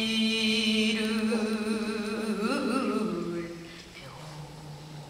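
Female pansori singer holding one long sung note with a wavering vibrato, in a sorrowful passage; the note ends about three and a half seconds in.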